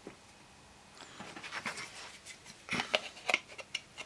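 Thin laser-cut MDF pieces being handled and slotted together on a cutting mat: light scattered clicks and taps, with a quick run of sharper clicks about three seconds in.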